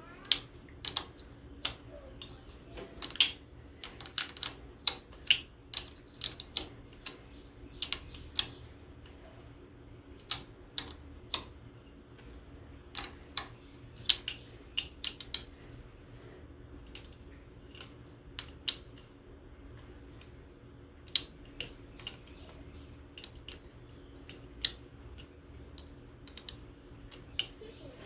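Irregular sharp metallic clicks and clinks of hand tools and small engine parts being handled while bolting up an ATV engine's top end, coming in short clusters with pauses between.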